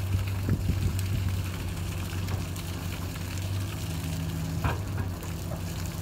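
Pickup truck engine running steadily at low speed, with a continuous hiss of liquid fertilizer streaming from the trailer tank's outlet and splashing onto the ground.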